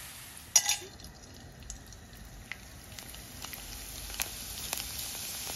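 Dried snack pellets frying and puffing up in hot oil: a steady sizzle with scattered sharp pops that grow a little louder and more frequent toward the end. A single knock comes about half a second in.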